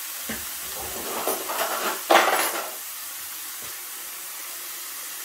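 Ground beef and vegetables sizzling steadily in a frying pan. Over it come scraping and clinking from a fork in a glass jar of mustard, loudest about two seconds in.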